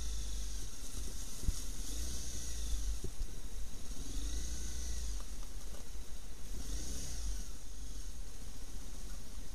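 Motorcycle running at low speed on a wet, slushy track, with a constant deep wind rumble on the camera microphone. A hiss swells three times as the tyres go through puddles and slush.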